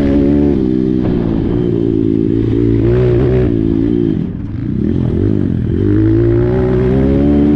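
Apollo RXF 150 pit bike's single-cylinder four-stroke engine running under throttle while being ridden, its pitch rising and falling. It drops off the throttle a little after four seconds in, then revs back up.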